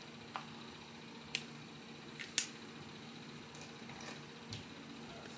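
A few small clicks and taps, about seven in five seconds with the sharpest about two and a half seconds in, as makeup containers and tools are picked up and handled, over a faint steady hum.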